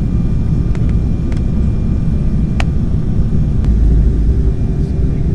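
Steady low rumble of a jet airliner's engines and airflow heard inside the cabin in flight, with a few light clicks in the first few seconds.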